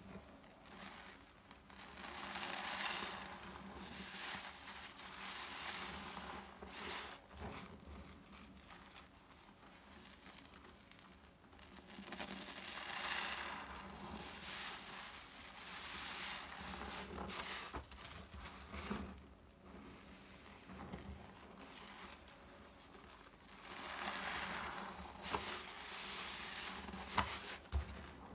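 Foam-soaked blue sponges squeezed and kneaded by plastic-gloved hands in a basin of thick liquid-soap foam: wet squishing of sponge and foam that swells and fades several times with the squeezes, with a few sharp pops near the end.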